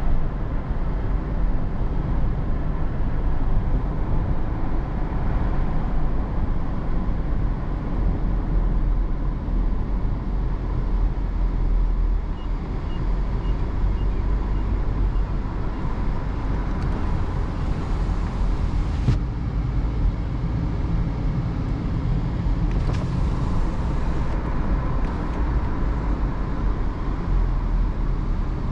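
Steady in-cabin engine and tyre noise of a 2022 Hyundai Tucson with a 1.6-litre engine, driving at low speed on asphalt: a continuous low rumble, with a brief extra hiss twice, in the middle and later on.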